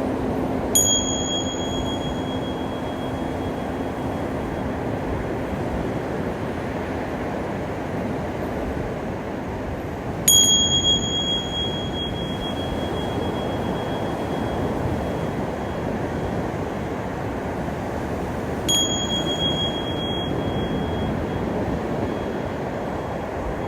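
A small high-pitched bell struck three times, about nine seconds apart, each ring dying away over a second or two, over a steady wash of ocean surf. A low ringing tone fades out in the first third.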